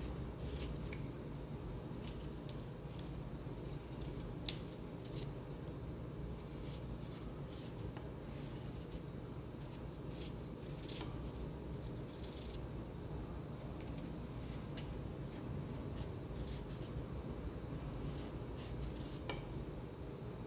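Small kitchen knife peeling a chayote by hand: short, unevenly spaced scraping strokes of the blade through the skin, over a steady low hum.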